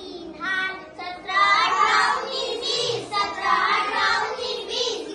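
Children singing lines of a poem in Urdu, in a sing-song melody.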